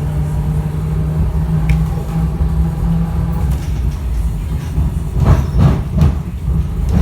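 Streetcar running on its track: a steady low motor hum over a rumble of wheels, with a few louder knocks about five seconds in.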